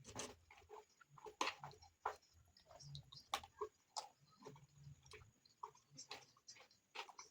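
Close-miked eating of rice and beans: chewing with irregular wet mouth clicks and lip smacks, a few a second.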